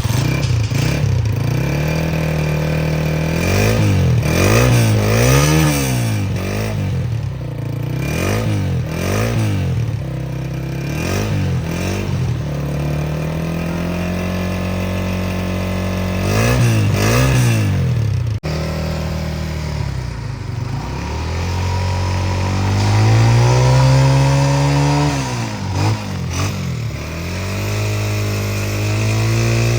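Honda CG 125 motorcycle's single-cylinder four-stroke engine idling and revved in repeated quick throttle blips, the pitch rising and falling with each one. After a sudden break about 18 seconds in, it revs in longer, slower swells.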